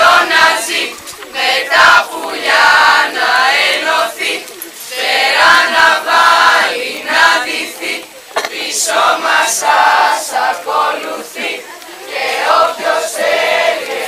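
A chorus of many voices singing together in loud phrases of a second or two, with short gaps between them.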